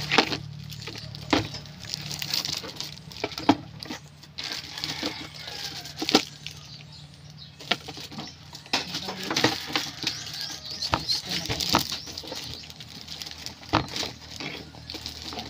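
Irregular knocks, clicks and rustling of plastic parts and packaging being handled while a water dispenser is unboxed and set up, over a low steady hum.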